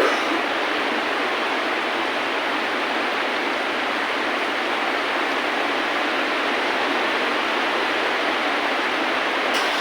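Steady rain falling, an even hiss with no music over it, with brief ticks at the start and near the end.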